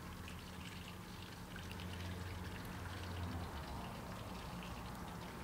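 Faint crackling and rustling of papery garlic skins and disposable plastic gloves as cloves are pulled apart from a garlic bulb, over a steady low hum.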